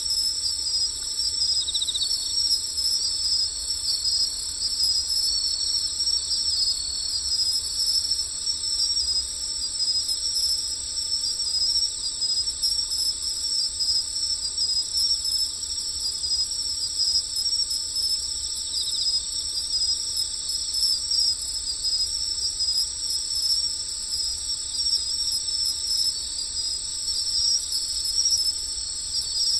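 Steady evening chorus of insects such as crickets, many shrill high-pitched trills layered at several pitches and running without a break.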